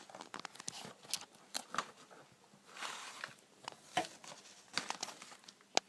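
Scattered clicks and taps with a short rustle about three seconds in: a miniatures game box and its packaging being handled and opened.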